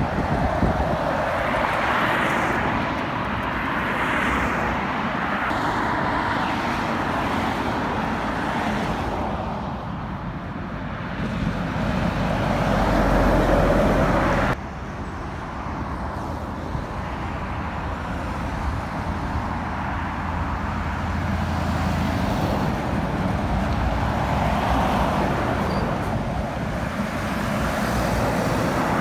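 Heavy lorries and other traffic passing on a dual carriageway: diesel engines and tyre noise in a steady stream. The loudest moment is a deep rumble from a fuel tanker lorry passing close, about halfway through, which cuts off suddenly.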